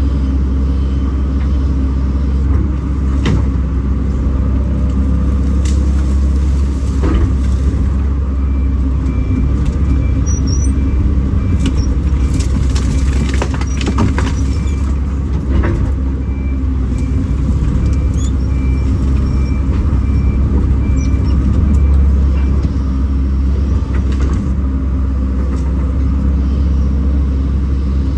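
Kobelco SK210 excavator's diesel engine running steadily under load, with scattered knocks and cracks. A short high beep repeats at an even pace for about fourteen seconds in the middle.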